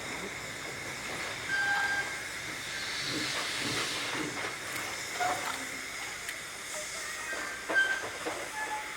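Narrow-gauge steam locomotive hissing steam steadily, with a few brief high squeaks and a sharp knock near the end.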